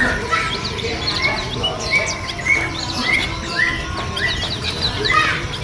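Many caged birds at a bird market chirping and calling at once: a dense, overlapping chorus of short chirps and whistled notes.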